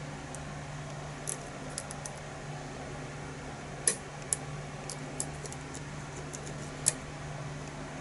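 Lock pick and tension wrench working the pins of a challenge lock: scattered light metallic clicks and ticks, the sharpest about four seconds in and again near seven seconds, over a steady low hum.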